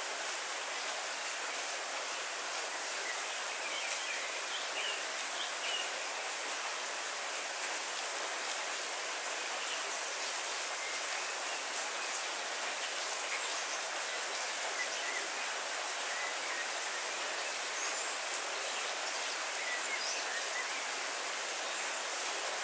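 Heavy rain falling steadily, with faint bird chirps now and then.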